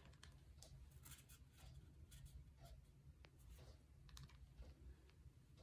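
Near silence with faint scattered clicks and ticks from a lipstick tube being handled.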